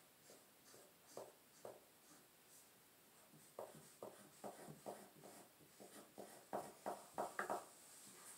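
Faint marker and pencil strokes on paper: a run of short scratches, sparse at first and quicker and louder in the second half, as fur is sketched on a drawing.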